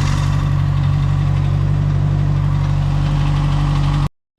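Car engine idling steadily, then cutting off abruptly near the end.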